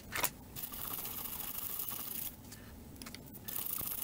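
A small brush scrubbing a circuit board in short scratchy strokes, with a click at the start and a couple of light clicks about three seconds in.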